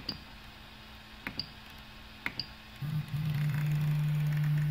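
A few clicks from the Prusa i3 MK2S's LCD control knob being turned and pressed. About three seconds in, a loud, steady low tone starts: the printer's Z-axis stepper motors driving the axis up.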